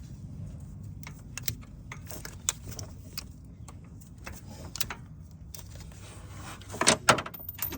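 Light metal clicks and clinks of bolts and hand tools being handled while fitting an AC compressor's lines, with a louder burst of clatter about seven seconds in.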